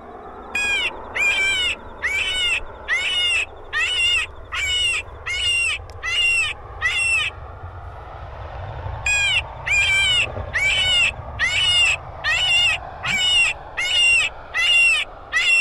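Electronic predator caller playing a fox-calling sound: short, identical high calls about two a second, each rising then falling in pitch, in two runs with a pause of about two seconds in the middle.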